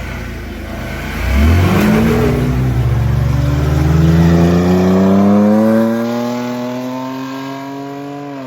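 Mud drag vehicle's engine accelerating hard down the track, its pitch climbing steadily for several seconds without a break.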